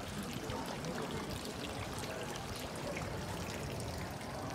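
Water pouring steadily into the stone trough of a town fountain, with faint voices of passers-by underneath.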